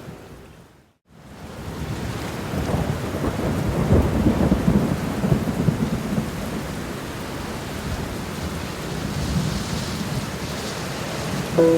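Rain falling steadily, with a long rolling rumble of thunder. The sound fades to a moment of silence about a second in, then swells back in, loudest from about three to six seconds.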